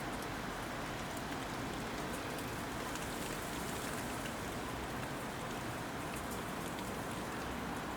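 Hail falling steadily and pattering on surfaces: a dense, even hiss scattered with many small sharp ticks.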